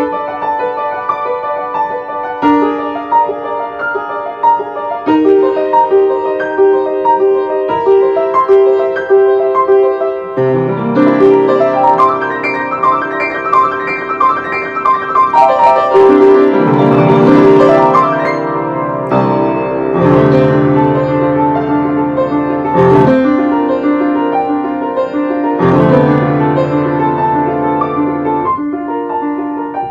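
Solo piano playing a piece, light at first, then growing fuller with deep bass notes about ten seconds in. It is loudest a little past the middle and thins out again near the end.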